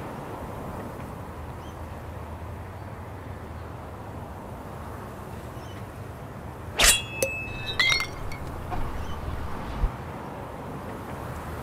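A sword rings out sharply about seven seconds in, followed a second later by a second, shorter metallic ring and a few faint clinks, over a steady low background hum.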